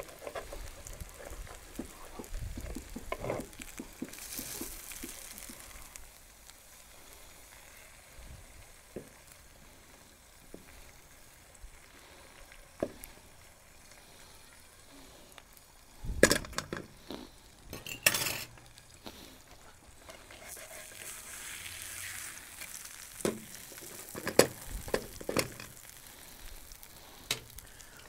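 Food frying in a frying pan over a small wood-burning Firebox stove: a soft, steady sizzle, with clinks and knocks of a knife, fork and other utensils against the pan, loudest about sixteen to eighteen seconds in and again in the last few seconds.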